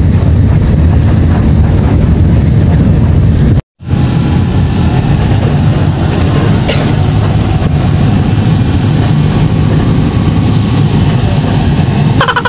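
Inside a moving passenger bus: a loud, steady low rumble of engine and road noise. It cuts out for a moment about four seconds in, then carries on.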